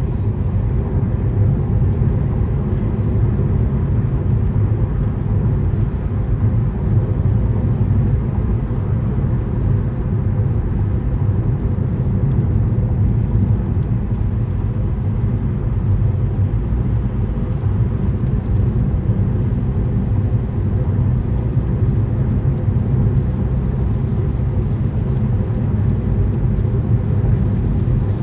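Steady low road and engine rumble of a car driving at highway speed, heard from inside the cabin.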